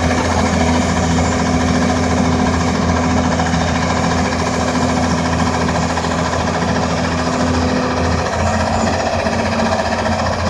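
Doosan DX300LC excavator's diesel engine running steadily under hydraulic load, with a dense mechanical clatter and a steady low hum, as the boom lifts the rock drill attachment; the hum shifts briefly about eight seconds in.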